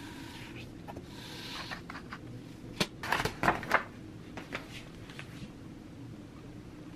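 Paper rustling and sliding as a gridded adhesive sheet is smoothed over a printed sticker sheet, followed about three seconds in by a quick run of light clacks and taps as a clear acrylic quilting ruler is set down and handled on it, with a few fainter taps after.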